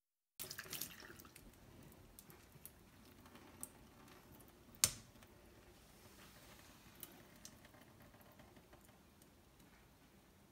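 Water dripping off a freshly washed metal mesh range-hood filter into a stainless steel sink. Scattered small ticks, a quick cluster near the start, and one sharper tick about five seconds in.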